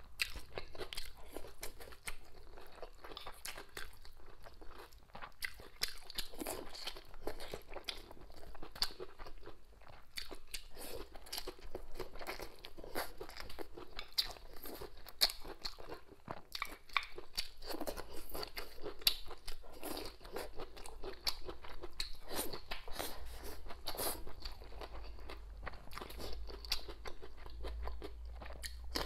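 Close-miked chewing with many sharp, crisp crunches as raw green chili peppers and bamboo shoots are bitten and chewed.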